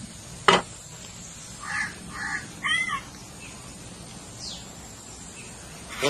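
A crow cawing three times in quick succession. About half a second before, a single sharp knock, the loudest sound here.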